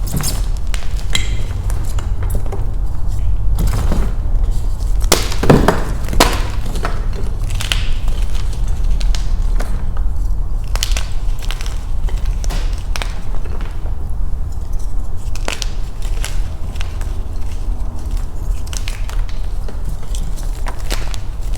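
Beasty gym chalk block crushed by hand close to the microphone: irregular crunching with sharp snapping cracks, the loudest cluster about five to six seconds in, over a steady low rumble.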